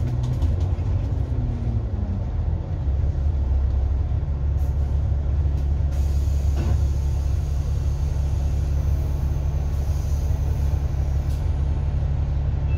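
Diesel double-decker bus engine heard from the upper deck: its note falls as the bus slows into a stop, then settles about three seconds in to a steady low idle.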